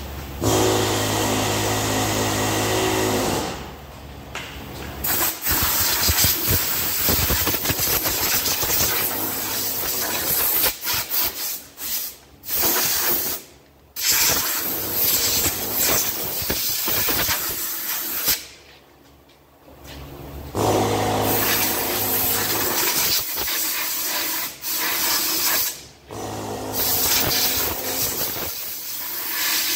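Compressed air hissing from an air blow gun on a hose, blasting at the DC motor in long bursts that stop and start several times. A low steady hum runs under it near the start and again about two-thirds of the way through.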